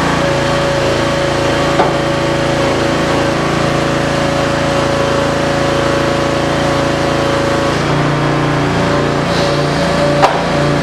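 The tire baler's 16-hp V-twin Briggs & Stratton engine runs steadily under its hydraulic pump, with a steady high tone over it. About eight seconds in the tone stops and the engine note shifts, and there is a sharp knock near the end.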